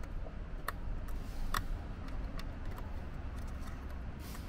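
Light, scattered plastic clicks and ticks as a crimped pin terminal on a red wire is worked into the end slot of a plastic automotive fuse box, over a low steady rumble.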